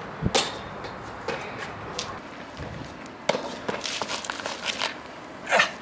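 Sneakers landing hard on concrete after a jump over metal railings, a thump less than a second in, followed by a few lighter steps and then a quick run of scuffs and taps as hands and feet work along a steel railing.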